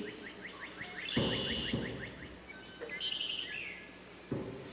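Birds chirping: a quick run of short, repeated chirps, then a few higher calls. A soft low thump comes about a second in and another near the end.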